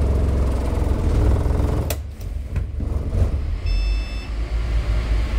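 Mercedes-Benz diesel engine of a Wright StreetLite bus idling with a steady drone, after a freshly fitted alternator. A sharp click comes about two seconds in, after which the engine sound is lower and thinner. A short electronic beep sounds once, about four seconds in.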